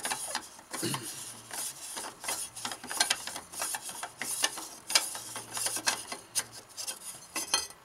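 Midwest Industries free-float handguard being spun by hand on the AR-15 barrel nut threads: a continuous run of irregular scraping and small clicks of metal threads turning.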